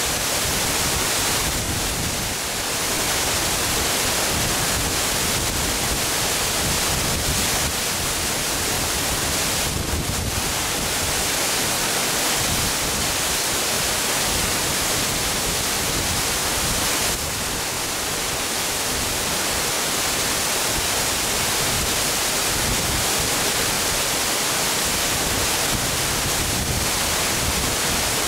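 Large waterfall plunging into its plunge pool: a steady, unbroken rush of falling water.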